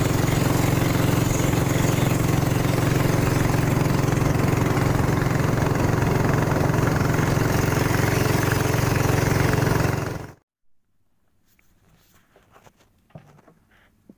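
A small boat's motor running steadily under way, with a broad steady hiss over its low hum. It cuts off abruptly about ten seconds in, leaving only faint knocks and rustles.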